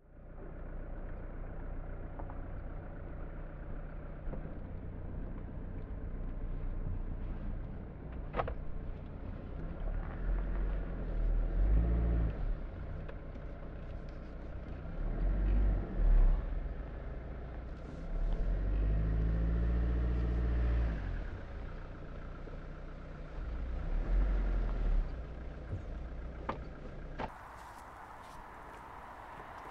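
Road traffic: several vehicles pass one after another, each swelling and fading over a few seconds, over a steady low rumble. Near the end the sound cuts to quieter outdoor ambience.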